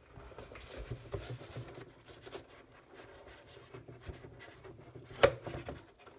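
Cardboard box and plastic-wrapped keyboard packaging being handled: light rubbing and scraping with small clicks, and one sharp knock about five seconds in.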